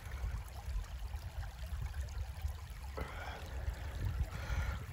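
Shallow creek water trickling over stones, a steady wash of noise with a low rumble underneath.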